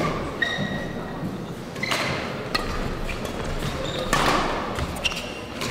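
Badminton rally: rackets striking the shuttlecock as sharp cracks a second or so apart, with short high squeaks of players' shoes on the court floor.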